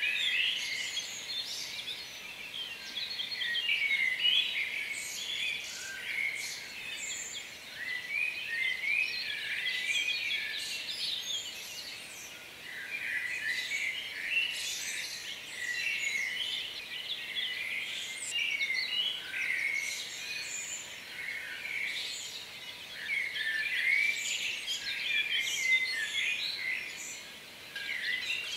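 Birds chirping and singing, many short overlapping calls and quick whistled glides in a continuous chorus.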